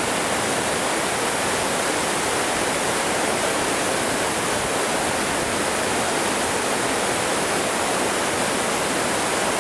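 Waterfall pouring over rocks into a rushing mountain stream: a steady, even rush of white water.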